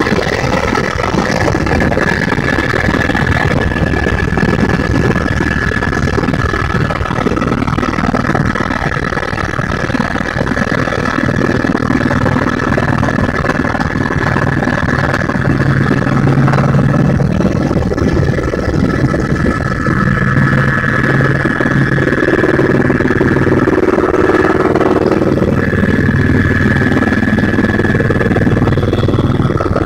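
Helicopter engine and rotor noise heard inside the cabin in flight: a loud, steady drone with a high whine running over it.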